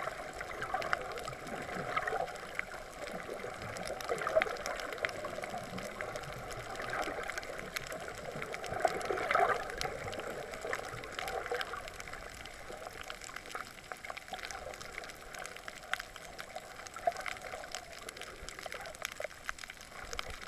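Underwater water noise picked up by a submerged camera: a steady muffled swishing with many scattered faint clicks and crackles, swelling louder around four seconds in and again near the middle.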